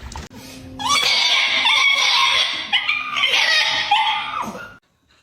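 A dog giving a loud, high-pitched, wavering cry for about four seconds that stops abruptly.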